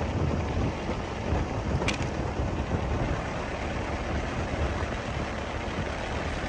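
A car driving steadily along a road, with a constant hum of engine and tyre noise. A single short click sounds about two seconds in.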